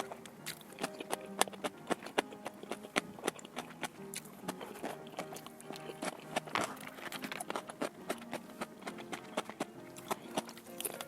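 Irregular sharp clicks and taps of utensils and tableware during a meal, over soft background music with steady held notes.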